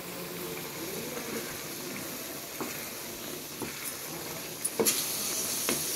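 Thick curry with moong dal fritters simmering and bubbling in a steel pan while a spoon stirs through it, with a sharp knock about five seconds in.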